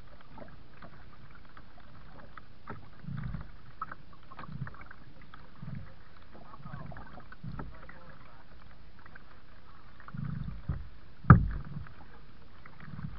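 Kayak paddling: paddle strokes in the water come as soft swells every couple of seconds. A few light clicks are heard, with one sharp knock about eleven seconds in.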